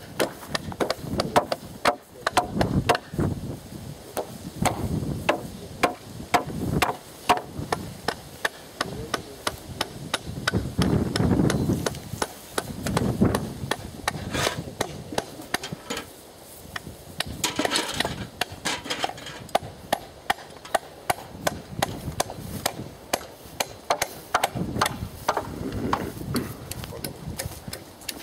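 Hand hammer driving nails into wooden fence poles and rails: sharp wooden knocks in runs of about two blows a second, with short pauses and some rustling of dry brush in between.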